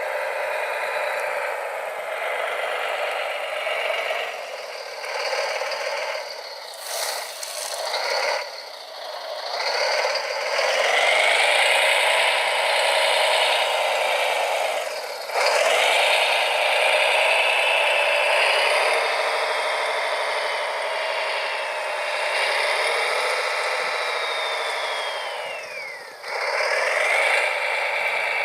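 Small electric motors of radio-controlled model construction machines whining, their pitch rising and falling as they speed up and slow down, with rattling and scraping. The whine drops away briefly about halfway through and again near the end before picking up again.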